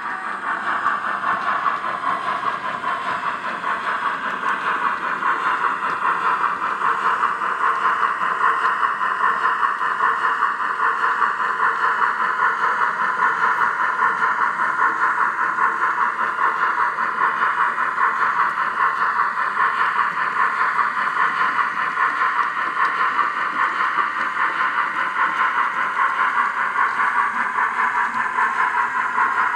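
H0-scale ELKOM model of the ČSD 556.0 'Štokr' steam locomotive running along the layout track with its train: a steady mechanical whir with a fast, even clatter.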